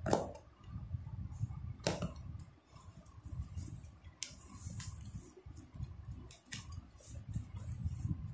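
Scissors cutting the packing tape on a cardboard parcel, with two sharp strokes, at the start and about two seconds in. The cardboard box flaps are then pulled open, with repeated short rustles and scrapes of cardboard.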